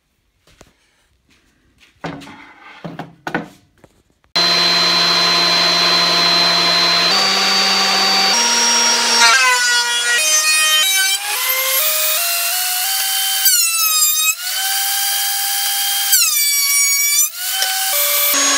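Benchtop thickness planer starting suddenly about four seconds in and running loudly, its motor whine stepping and dipping in pitch as the glued-up cherry and maple board is fed through. A few light knocks and handling sounds come before it starts.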